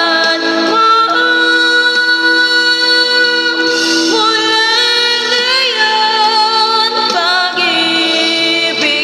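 A woman singing into a microphone, holding long notes that bend and slide in pitch, over backing music.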